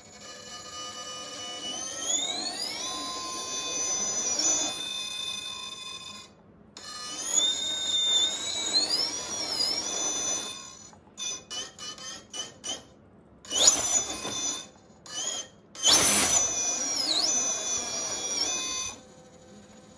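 Electric motor and gear drive of a radio-controlled rock crawler whining under throttle, rising in pitch as it speeds up. Further on, a string of short stop-start throttle pulses, then a longer burst that stops a second before the end.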